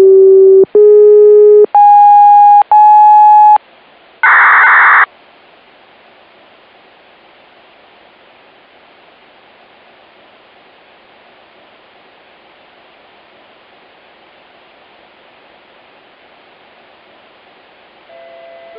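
Scanner receiving an analog municipal disaster-prevention radio broadcast. First come four loud electronic beeps, two low then two higher, so hot they clip, followed by a short buzzing burst: the control tones that open the broadcast. Then comes a long stretch of steady radio hiss from the open channel, and near the end a chime melody begins.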